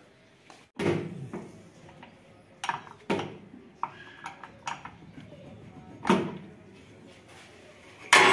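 Sharp metal clanks and knocks from hands and tools working at a combine harvester's battery box, loosening the battery clamps to take the batteries off for charging. There are several separate knocks: one about a second in, two close together near three seconds, and a loud one about six seconds in.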